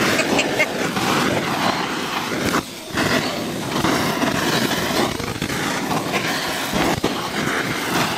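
Busy outdoor market background: a steady hubbub of distant voices and bustle, with a few light clicks. It dips briefly about three seconds in.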